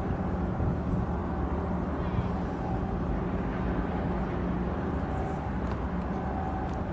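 Steady low diesel engine drone with a constant hum from the departing container ship and its assisting harbour tug.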